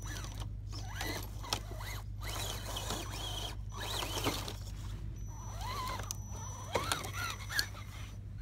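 Electric motor and drivetrain of an Axial Rubicon RC rock crawler whining in several short bursts, the pitch rising and falling with the throttle. A few sharp clicks from the tyres working over twigs and the log are mixed in.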